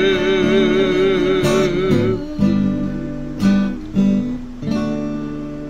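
A woman holding a last sung note with a wavering vibrato over acoustic guitar, which stops about two seconds in. Then a few final strums on the acoustic guitar ring out and slowly fade as the song ends.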